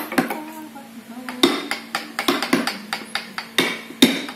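A mallet striking a carving chisel into a wooden relief panel, after a short voice at the start. From about a second and a half in come quick, irregular sharp knocks, about three a second.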